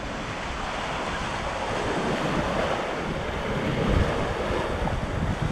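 Wind buffeting the microphone over a steady wash of sea surf, swelling and peaking about four seconds in.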